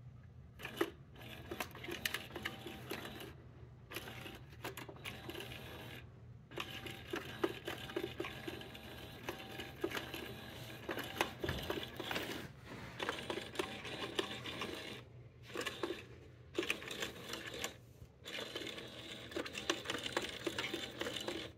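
Small electric motor of a whack-a-mole cat toy whirring and clicking as it pokes feather lures in and out of the box's holes, stopping briefly several times and starting again.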